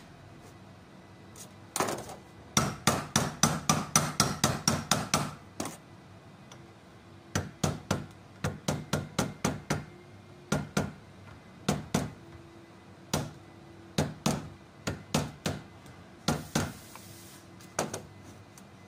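Hammer striking a screwdriver held against the clutch pulley of a car A/C compressor: runs of quick metal taps, about five a second at their fastest, in several bursts with single strikes between. A short hiss comes near the end.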